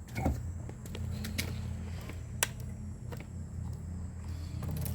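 Yamaha Mio i125 scooter's single-cylinder engine idling steadily just after starting, with a few sharp clicks, the loudest about two and a half seconds in.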